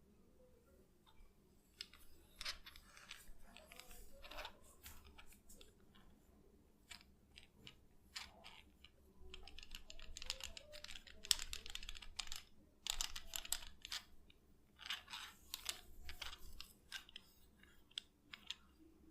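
Head massage sounds: hands and fingers working over hair and scalp, giving repeated bursts of soft crackling and rustling, busiest in the middle and again near the end.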